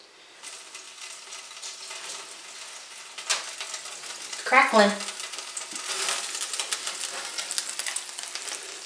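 Food crackling and sizzling under a hot oven broiler: a steady hiss full of quick fine pops and crackles.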